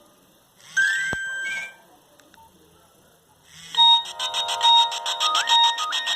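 Nokia 1110 monophonic ringtones from the phone: a short electronic phrase of rising beeps about a second in, a pause, then a different, buzzier tune of fast pulsing notes that starts near the middle and steps up in pitch twice.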